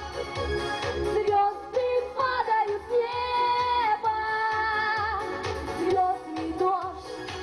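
A female vocalist singing a pop song into a microphone over backing music with a steady beat, holding one long note about three seconds in.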